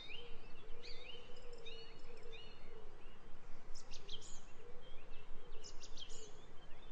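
Birds singing, many short rising and falling chirps with a few sharper calls about four and six seconds in, over steady outdoor background noise and a faint wavering hum.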